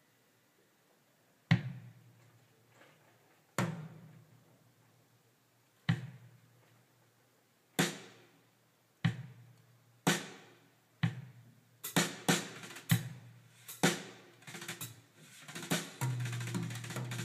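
Recorded music played back through a DIY Rogers LS3/5a bookshelf speaker: a percussion passage of single drum hits about two seconds apart, coming quicker in the second half, with a sustained low bass joining near the end.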